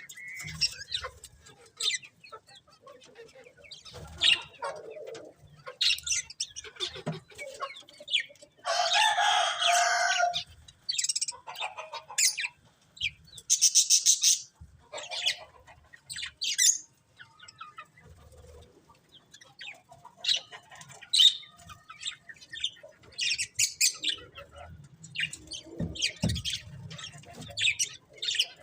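Budgerigars chirping and chattering in many short calls, with a longer, louder call about nine seconds in and another loud burst of calls about fourteen seconds in.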